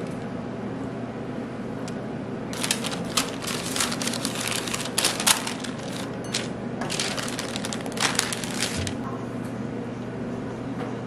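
A run of dense crackling and crinkling noises lasting about six seconds, starting a few seconds in, over a steady low hum.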